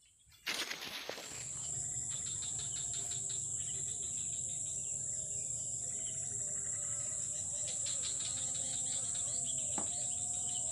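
Insects chirring in a steady high-pitched drone that starts abruptly about half a second in, with faint wavering calls lower down and a single click near the end.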